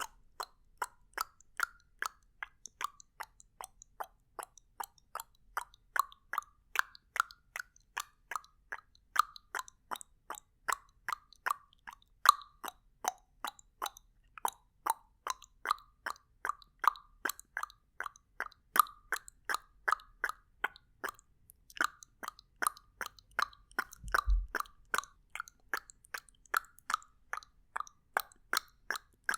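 Tongue clicks made over and over in a steady train, about three sharp clicks a second, with a single low thump a little after four-fifths of the way through.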